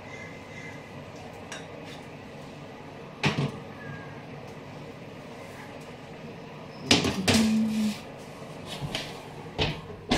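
Small metal loaf tins knocking and scraping against the oven's wire rack as they are set in place, a few separate clatters. The oven door is shut in the second half.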